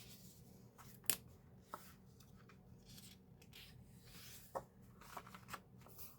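Pages of an album's paper photo book being handled and turned: faint rustling with a few soft clicks and taps, the sharpest about a second in and a small cluster near the end.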